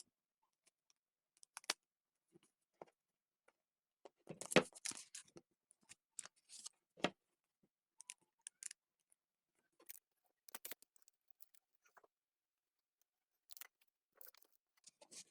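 Paper being handled in a paper-squishy craft: scattered soft rustles and crinkles with a few light clicks, the loudest cluster about four and a half seconds in.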